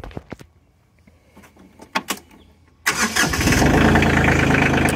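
A few small clicks, then the Bobcat CT2025 compact tractor's diesel engine is started about three seconds in: it catches almost at once and settles into a steady idle.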